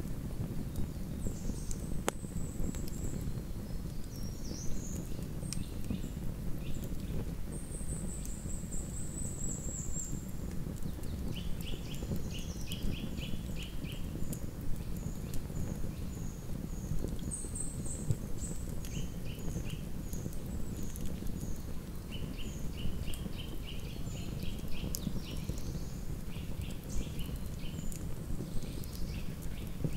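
Wood campfire burning with scattered crackles and pops over a steady low rumble. Small birds call throughout, with thin high notes and short rapid trills.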